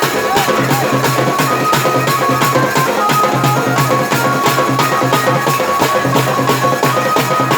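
Dance music with a steady, quick drum beat and sustained melodic tones.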